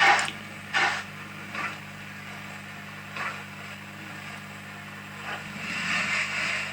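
Hornby Mallard model steam locomotive's Zimo sound decoder playing soft steam hisses: a few short ones, then a longer hiss near the end, over a steady low hum.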